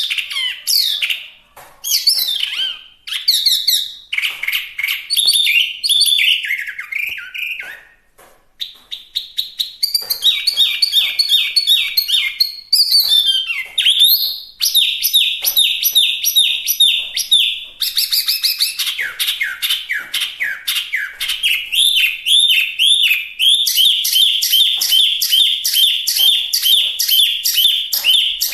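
Hwamei (Chinese hwamei, wambi) singing in full song: a long, varied run of loud, fast phrases, with a brief pause about eight seconds in, then long series of rapidly repeated notes.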